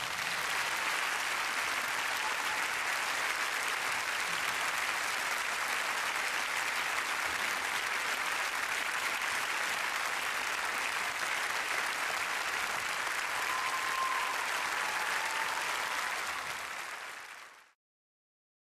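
Audience applauding steadily after a song, fading out near the end.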